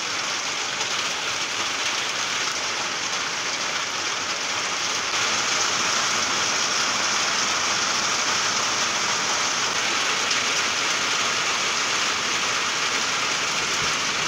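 Heavy rain pouring steadily in a downpour, getting a little louder about five seconds in.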